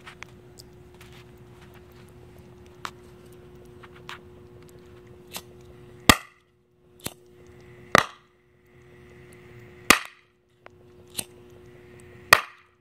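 Oxyhydrogen (HHO) gas bubbling up through water is lit by a lighter flame and goes off in sharp, loud pops: four cracks about two seconds apart, with fainter clicks between them.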